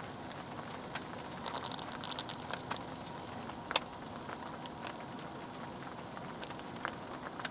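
Okonomiyaki warming in an oiled frying pan over low heat: a faint sizzle with scattered small crackles and pops, one sharper pop about halfway through.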